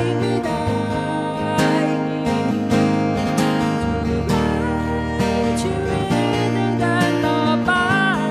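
Background music with strummed acoustic guitar and a melodic voice or lead line.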